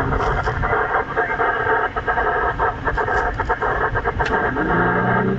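A vehicle driving on a gravel forest road, heard from inside the cabin: steady engine and tyre noise with stones and loose parts clicking and knocking. Near the end the engine note rises as it speeds up.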